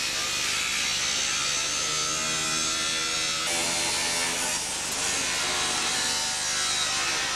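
Angle grinder cutting through a London taxi's sheet-metal bodywork: a steady motor whine with the hiss of the disc biting the metal, shifting abruptly in tone about halfway through.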